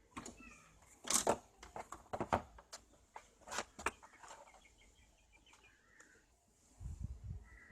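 A string of sharp clicks and knocks through the first four seconds, then faint bird chirps and a low thud near the end.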